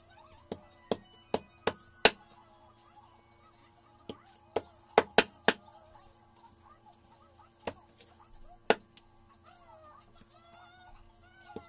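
A cleaver chopping raw chicken into pieces on a thick wooden chopping block. There are two quick runs of about five sharp chops each, then two single chops a second apart.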